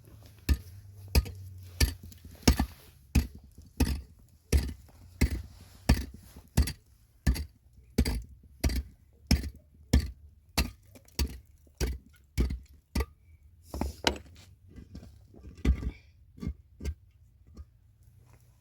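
Steady, regular blows of a hand tool, about three every two seconds, stopping a little before the end.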